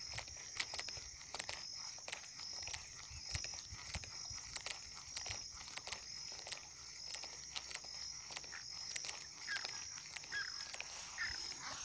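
Faint countryside ambience: a steady high-pitched chirping of small wild creatures, repeating about twice a second, with scattered soft clicks throughout and a few short chirps near the end.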